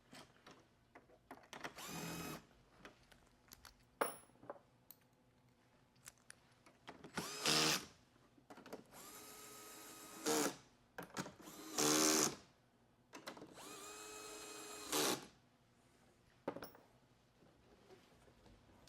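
Electric drill-driver run in about five short bursts, each spinning up to a whine, with clicks and a sharp knock between runs, as fasteners are driven during reassembly of the screen.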